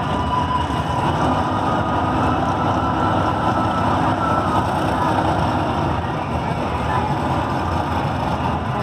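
Steady rumble of drag-racing cars idling at the dragstrip's staging lanes, with no launch or run down the track.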